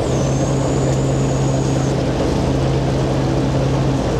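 A fishing vessel's diesel engines running with a steady low drone, mixed with the wash of sea water along the hull. A thin high whine sounds over it for the first two seconds, then stops.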